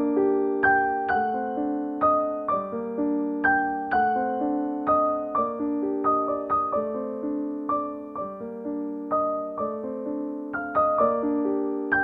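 Background piano music: single notes and chords struck about twice a second, each ringing out and fading.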